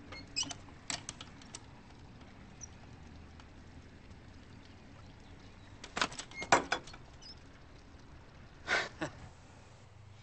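Metal mail-slot flap in a wooden front door clacking as an envelope is shoved through: a quick cluster of sharp clicks about six seconds in, then a short scraping rustle. A few lighter clicks come near the start.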